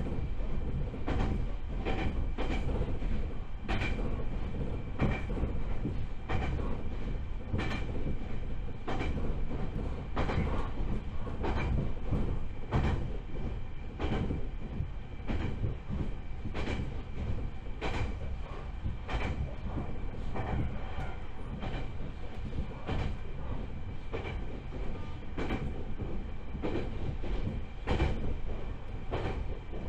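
Joshin Electric Railway 7000 series electric train running between stations, heard from inside the car: a steady rumble of wheels on rail with a faint steady whine, and the clickety-clack of wheels passing rail joints, often in pairs, about once a second.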